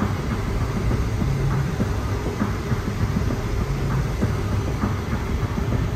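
Steady low rumble of a car's tyres and engine heard from inside the cabin while driving on a highway.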